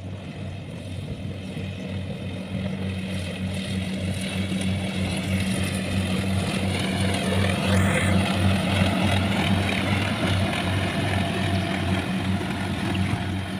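Kubota rice combine harvester running as it cuts, a steady pulsing engine drone that grows louder as the machine comes closer. About eight seconds in, a higher whine rises and falls over it.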